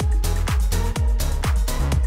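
Electronic dance music with a steady kick drum at about two beats a second over a bass line.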